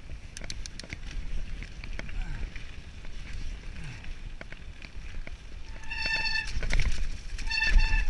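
Mountain bike riding down rough forest singletrack: a steady low rumble from the tyres, with rattling knocks as the bike runs over roots and stones. Near the end come two short, high-pitched brake squeals.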